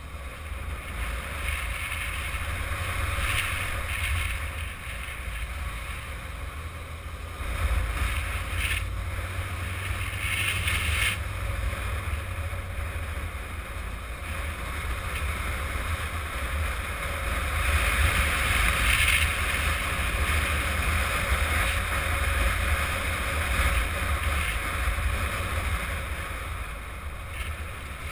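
Wind rushing and buffeting over the microphone on a moving Yamaha XJ600 Diversion motorcycle, with the bike's air-cooled inline-four running at road speed beneath it. The rush swells louder about eight seconds in and again around eighteen to nineteen seconds.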